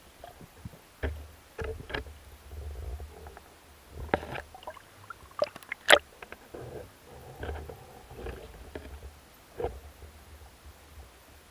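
Muffled underwater sound: a low rumble of water moving around the microphone, with scattered knocks and clicks, the sharpest about six seconds in.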